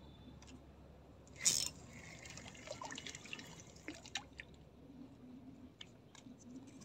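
Water splashing once about a second and a half in, followed by light dripping and small scattered ticks.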